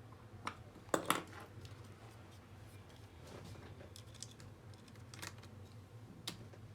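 Scattered light clicks and taps of small plastic and metal laptop parts being handled and fitted back together. The loudest is a quick double click about a second in, with a few fainter ticks later.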